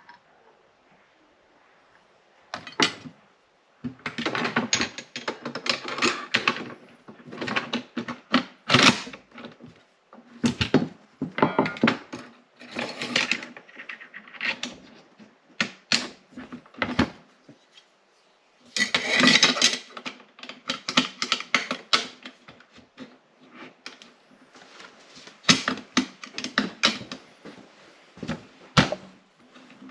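Metal rifle parts clicking, sliding and clattering as a rifle is handled and reassembled by hand, in irregular bursts of sharp clicks and knocks.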